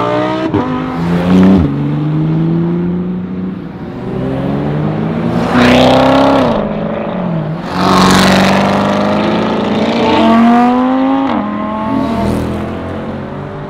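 Supercar engines accelerating hard, the pitch climbing and then dropping back sharply at each upshift, several times over.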